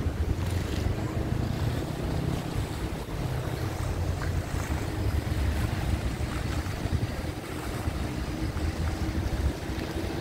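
Wind buffeting the phone's microphone: an irregular low rumble, with a faint steady hum underneath.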